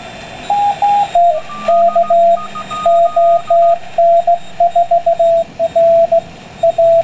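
Morse code (CW) signals on the 40-metre band heard through a homebuilt WBR regenerative receiver: a steady beat tone keyed on and off in dots and dashes, starting about half a second in. A fainter second Morse signal at a higher pitch keys for a few seconds behind it, over band hiss.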